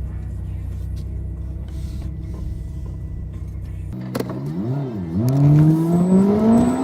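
Steady low drone of a car heard from inside the cabin. About four seconds in it gives way abruptly to a louder pitched sound that wavers down and up, then climbs steadily in pitch.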